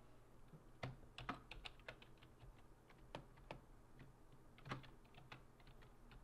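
Typing on a computer keyboard: irregular runs of key clicks with short pauses, starting about a second in and stopping shortly before the end.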